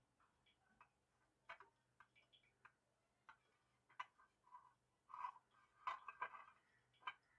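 Faint, scattered light clicks and brief rubbing sounds as oily fingers are wiped around the inside of an aluminium tin, greasing it. The rubbing is busiest in the last couple of seconds.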